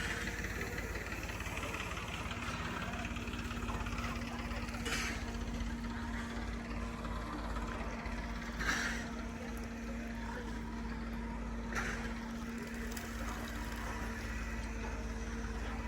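Steady low machine hum with a held tone over a constant rumble, broken by three short swishing noises about five, nine and twelve seconds in.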